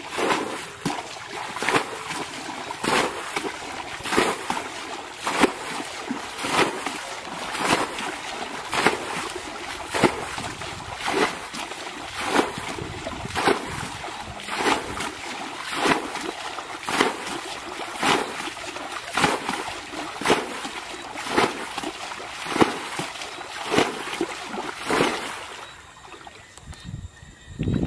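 Muddy water being bailed from a shallow paddy pool with a plastic bucket, draining it to catch fish: a regular scoop-and-throw splash about once every second and a bit. The splashing stops near the end.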